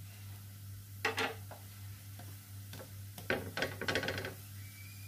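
A spatula scraping and pressing on a rava pizza as it cooks on a nonstick griddle, in two short bouts about a second in and from about three seconds in, over a steady low hum.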